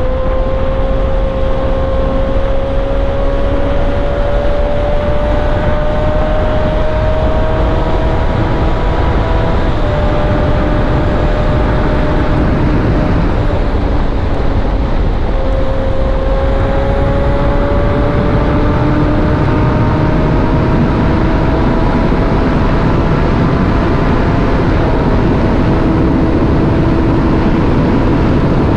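Motorcycle engine running under load with heavy wind rush. Its note climbs slowly in pitch, drops back about ten seconds in and again about fifteen seconds in, then climbs again.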